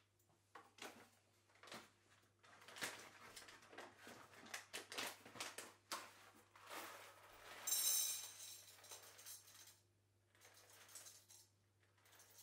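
Paper coffee bag rustling and crinkling as it is handled and opened, then whole coffee beans poured from it, a dense rattle about eight seconds in that is the loudest part, followed by softer rustling.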